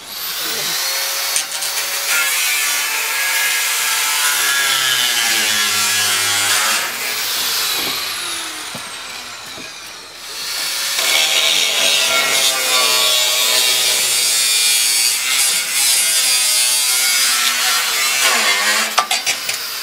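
Electric angle grinder cutting through the steel frame of a shed, in two long cuts with a lull about eight seconds in. Its whine rises as it spins up at the start, wavers in pitch as the disc bites, and winds down near the end.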